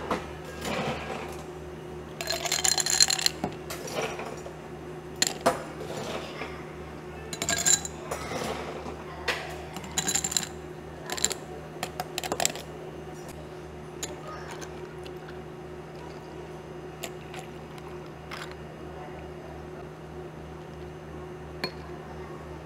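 Ice cubes tipped from a metal ice scoop into two tall glasses, rattling and clinking in several bursts through the first half. After that only a few light clinks remain over a steady low equipment hum.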